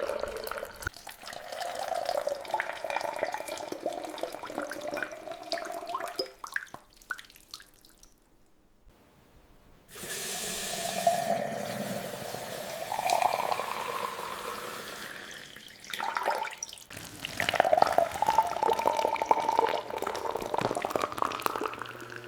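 Liquid running and splashing, with uneven surges. It stops for about two seconds around eight seconds in, then starts again suddenly.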